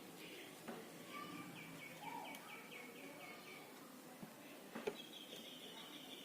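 Faint bird chirping in the background, a quick run of about ten repeated short notes in the middle, with a few small sharp clicks, the loudest near the end.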